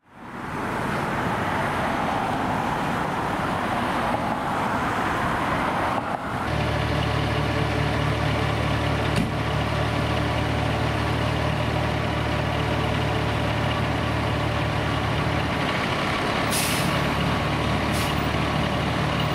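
A fire engine's diesel engine running at a steady pitch, after a rushing noise in the first six seconds. Two short air hisses come near the end.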